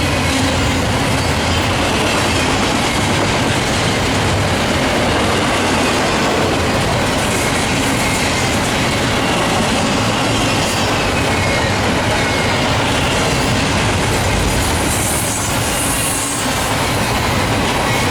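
Canadian National intermodal and autorack freight train rolling past: a loud, steady rumble and clatter of steel wheels on the rails, with a faint high wheel squeal.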